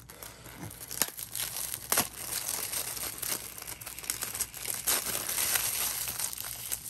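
Clear plastic shrink-wrap crinkling and tearing as it is peeled off a DVD case by hand, with a few sharper crackles along the way.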